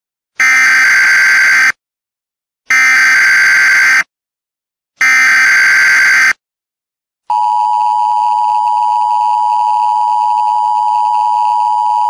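Emergency Alert System broadcast tones: three short buzzy digital data bursts of the SAME header, each about a second long. After a short gap, the steady two-tone EAS attention signal starts about seven seconds in.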